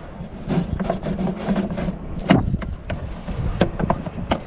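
Plastic cabin air filter and its cover on a Freightliner truck being slid back into the housing by hand: a string of clicks and knocks, the sharpest about two and a half seconds in, over a steady low engine hum.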